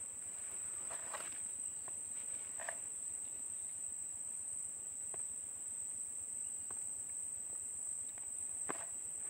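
Steady, high-pitched buzzing of an insect chorus. It is joined by a few faint short splashes and rustles as a cast net is hauled through the water by its rope.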